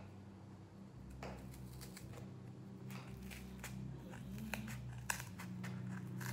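Scissors cutting through a paper picture glued onto cardboard: a series of irregular sharp snips, with the loudest near the end, over a low steady hum.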